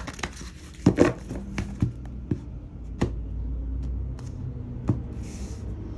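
A deck of tarot cards being handled by hand: the deck is split and set down on a wooden table, giving a scattering of sharp card clicks and taps, with a brief brushing sound about five seconds in, over a low steady hum.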